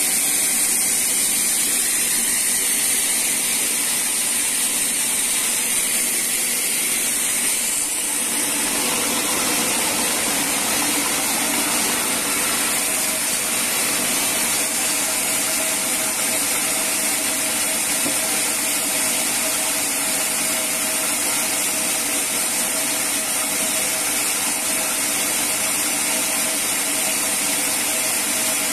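Sawmill band saw running and cutting a teak log. About eight seconds in, the sound changes from a hissing cut to a steadier hum with faint held tones.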